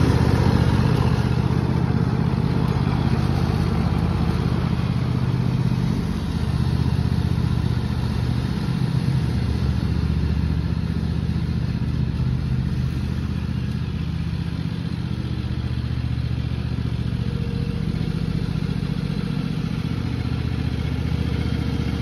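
Cub Cadet XT1 riding lawn mower engine running steadily while mowing grass, a little quieter after the first few seconds as it moves off across the lawn.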